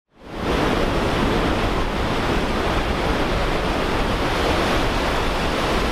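Ocean surf breaking and washing up the beach, a steady rush that fades in over the first half second, with wind rumbling on the microphone.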